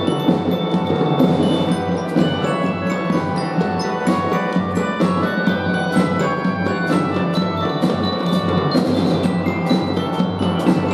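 Children's fife-and-drum band playing, with bright mallet-percussion notes such as glockenspiel over a steady drum beat.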